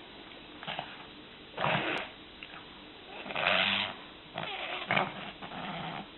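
Griffon Bruxellois sick with kennel cough, snorting and coughing in about five separate bursts, the loudest about three and a half seconds in. The sounds are a sign of a bad kennel cough, with the dog badly congested through his flat face.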